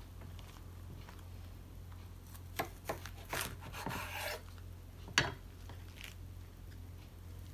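A kitchen knife sawing through a rice-paper spring roll of raw carrot, cucumber and lettuce on a wooden cutting board: a couple of light taps, then about a second of rasping cutting. A sharp knock a little later as the knife is set down on the board.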